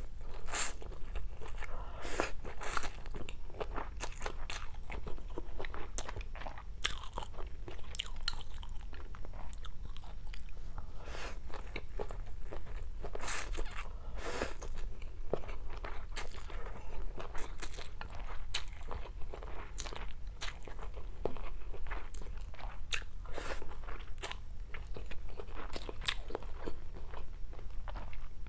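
A person chewing mouthfuls of stir-fried rice vermicelli with fried tofu close to a clip-on microphone, with frequent irregular crunches and clicks.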